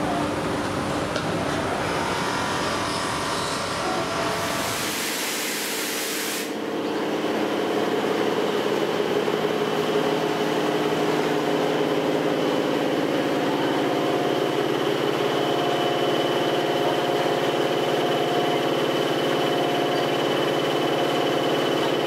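Steady drone of factory machinery. A hissing noise in the first few seconds cuts off about six seconds in, leaving a steadier hum with several held tones.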